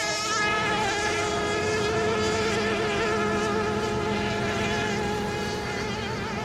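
Several radio-controlled racing boat engines whining at high revs as the boats circle during the mill period before a race start. Their pitches overlap and waver a little.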